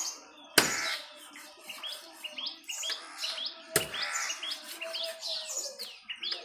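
Two sharp chops of a large knife through fish onto a wooden log chopping block, about three seconds apart, with small birds chirping continuously in the background.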